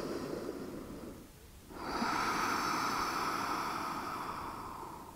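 A person's slow, deep breathing close to the microphone: one breath, a short pause, then a longer breath out that fades away.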